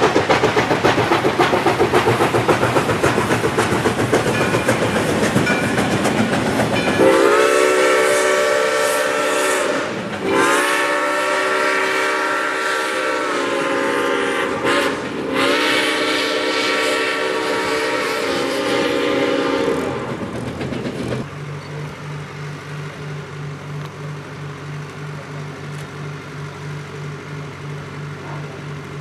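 ALCO 2-8-0 Consolidation steam locomotive working hard past, with rapid exhaust beats. About seven seconds in, its chime whistle sounds three long blasts, the first two with short breaks between them. Then the train noise drops away and a quieter steady low hum with a slow pulse remains.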